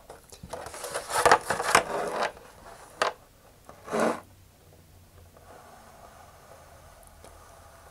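Mechanical pencil tip scraping along a vacuum-formed plastic shell in several quick, loud scratchy strokes, then a click about three seconds in and one shorter scrape about a second later.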